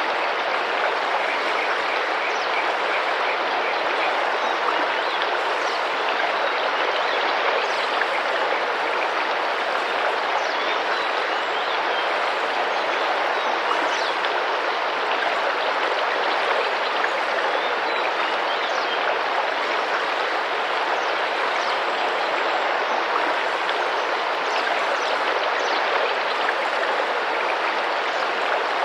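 Rainforest river water rushing and splashing steadily, with faint, short, high bird chirps scattered over it.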